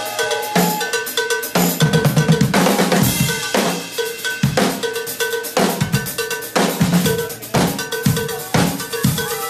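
One drum kit played by two drummers at once: rapid hits on the drums and cymbals, with a ringing pitched note struck over and over.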